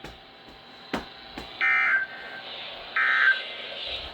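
Emergency Alert System end-of-message code over a weather radio: two short bursts of SAME digital data tones about a second apart, marking the end of the severe thunderstorm warning broadcast. A sharp click comes about a second in.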